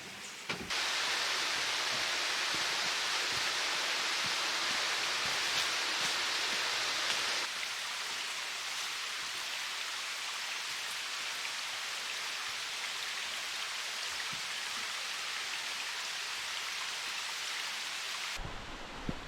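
Steady rush of water pouring over rocks in a mountain valley stream, a constant hiss with no distinct drops or tones. It steps down in loudness about seven seconds in, and gives way to quieter, lower ambience near the end.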